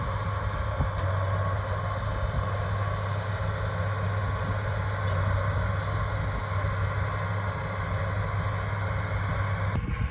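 Case IH 7140 Magnum tractor's turbocharged six-cylinder diesel engine running steadily under load as it pulls a big square baler through hay, a constant low hum heard from across the field. The sound changes abruptly just before the end.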